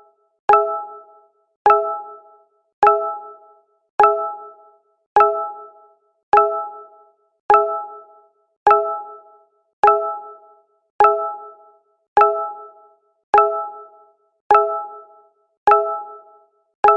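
Google Hangouts notification sound repeating over and over, about once every 1.2 seconds: each time a short bright chime of a few notes that rings and fades within a second.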